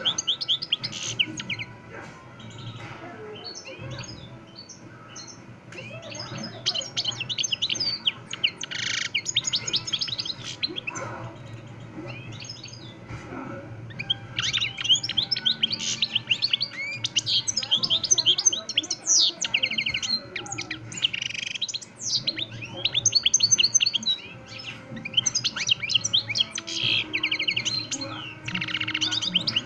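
European goldfinch (jilguero) singing an Extremeño-style song: long runs of rapid, high twittering notes, going on almost without a break apart from a few short pauses.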